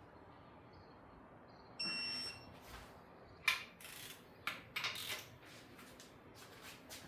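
A single electronic beep lasting about half a second, about two seconds in, followed by several sharp metallic clicks and knocks of tool work.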